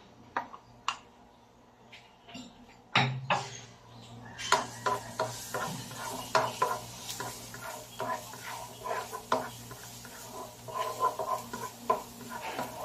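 Plastic spatula stirring, scraping and tapping on a nonstick wok as minced garlic is sautéed in oil. A thump about three seconds in is followed by a low hum, and a faint sizzle comes in about a second later.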